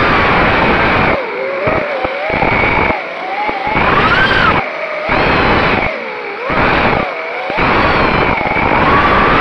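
FPV quadcopter's brushless motors and propellers whining, the pitch rising and falling as the throttle changes, over a loud rush of wind and prop wash on the onboard camera's microphone. The low rush drops away briefly several times as the throttle is cut.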